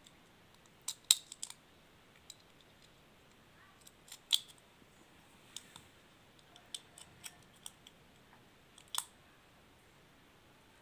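.22 LR cartridges being pressed one by one into a rifle's small detachable box magazine: scattered sharp metallic clicks as the rounds snap into place, the loudest about a second in and at about four seconds.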